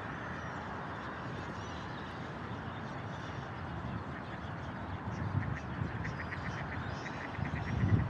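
Mallard ducks quacking in a quick series of short calls, several a second, starting about five seconds in, over steady background noise. A low rumble rises briefly near the end.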